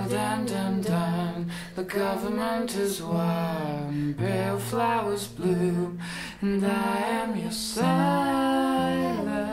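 A man and a woman singing a folk song together, with acoustic guitar and a second stringed instrument underneath.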